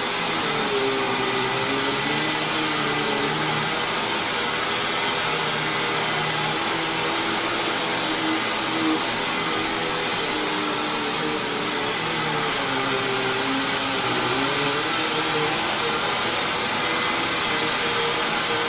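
Hoover WindTunnel Lite upright vacuum cleaner running steadily, a constant rush of air over a motor hum whose pitch wavers slightly up and down every few seconds.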